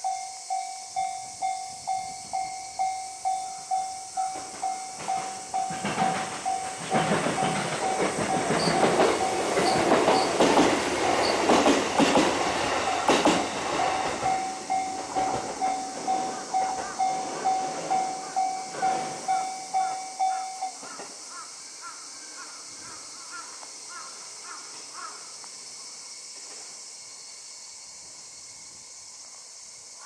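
Japanese railroad crossing's electronic warning bell ringing about twice a second while a train passes, its rumble and wheel clacks over the rail joints loudest in the middle. The bell stops about two-thirds of the way through, as the crossing clears.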